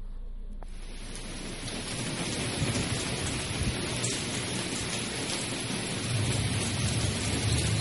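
Heavy rain, a steady hiss that starts abruptly about a second in, with a low rumble growing louder near the end.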